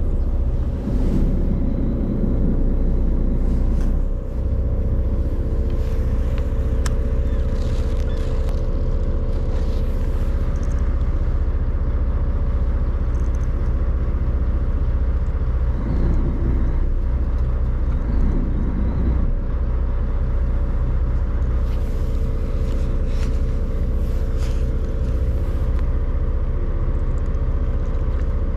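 Fishing boat's engine running with a steady low drone and a constant hum, with a few faint clicks and knocks of rod and reel handling over it.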